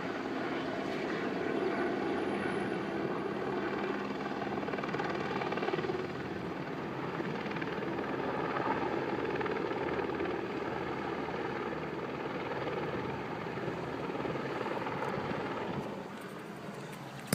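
Helicopter overhead, its rotor and engine giving a steady drone, a little quieter near the end.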